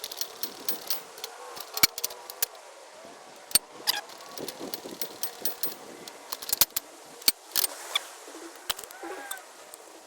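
Irregular clinks, clicks and sharp knocks of metal parts and hardware being handled while a lawn mower lift is assembled.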